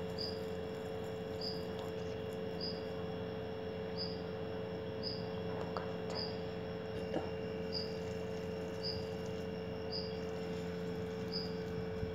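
A cricket chirping, one short high chirp about every second, over a steady low electrical hum. A couple of faint soft handling sounds come near the middle.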